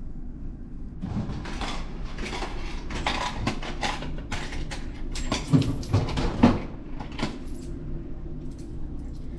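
A frozen-food vending machine dispensing a pack of daifuku: an irregular run of mechanical clunks, clicks and knocks, loudest about five and a half to six and a half seconds in, over a low steady hum.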